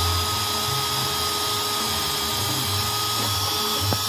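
Cordless drill running at a steady speed, its bit boring into the sheet-metal body panel of a Toro commercial mower with an even whine.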